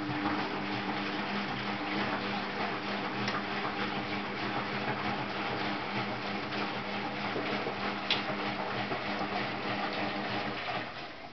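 Bendix 7133 Autowasher Deluxe Electronic front-loading washing machine filling with water for its conditioned rinse: a steady rushing hiss of water entering the drum, over a low steady hum, that starts abruptly and cuts off near the end.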